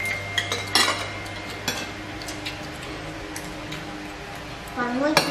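Metal spoons clinking and scraping against ceramic bowls as people eat, a few sharp separate clinks over a steady low hum.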